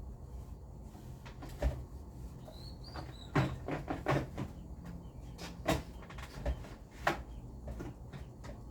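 Scattered knocks and clatters of household objects being handled and set down, in the manner of cupboard doors and items being moved. A quick cluster comes about three and a half to four and a half seconds in, with single knocks before and after, over a low steady hum.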